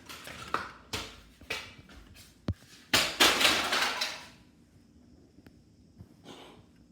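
Handling noise from a small plastic garage door opener remote being turned over close to the microphone: a few light knocks and clicks, then about a second of loud rustling.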